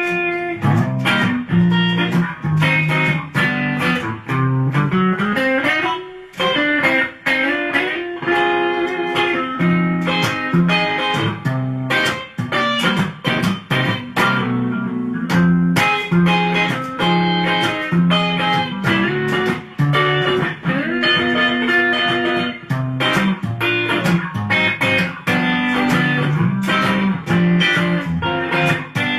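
Antoria Jazzstar hollowbody electric guitar played through an amplifier, picking a busy rockabilly line of single notes and chords with pitch slides.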